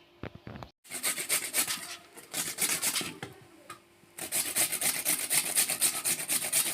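A knife scraping and paring white pumpkin (ash gourd), making rapid rasping strokes in three runs, the last and longest starting about four seconds in.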